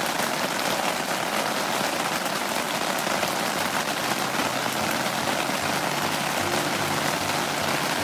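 Steady rain falling, an even hiss. Faint background music comes in about two-thirds of the way through.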